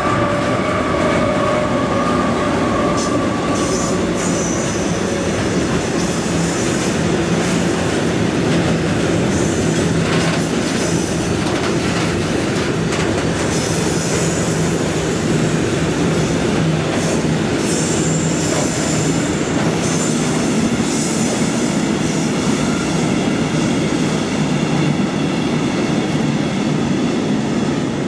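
Freight train of hopper wagons passing close by at speed, hauled by diesel locomotives: a steady, loud rumble of wheels on rails with clattering over rail joints. High-pitched wheel squeal comes and goes several times as the wagons roll past.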